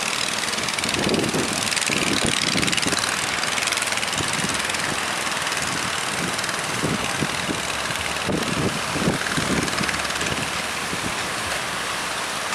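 Fishing boat engine running, under a steady rush of strong wind and waves.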